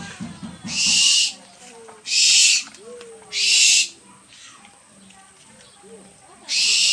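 An owl giving harsh, hissing screeches: four loud rasping hisses of about half a second each, the first three roughly a second apart and the last near the end.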